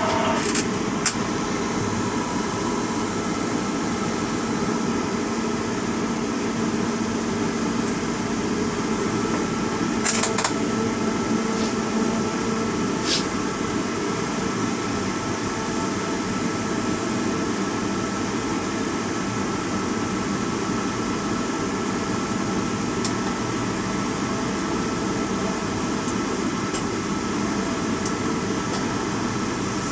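Steady mechanical hum with a thin high whine, heard inside a tower crane's operator cab, with a few brief clicks about ten seconds in.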